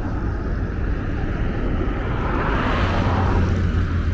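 Wind rumbling on the microphone over road noise, with a passing vehicle that swells and fades about two to three seconds in.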